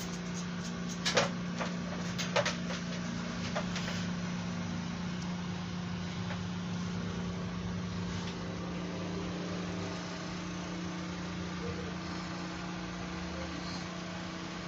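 Steady mechanical hum, even and unchanging, with a few sharp clicks or knocks about one and two and a half seconds in.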